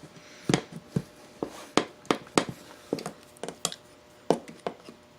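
About a dozen sharp, irregular metal clicks and taps as needle-nose pliers grip and work at a cotter pin stuck in an ATV's castle nut.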